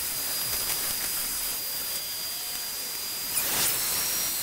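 Vacuum cleaner running with a steady hiss of suction and a thin high whine, its hose and wand sucking up loose rivet pieces inside a metal locker. A brief knock near the end.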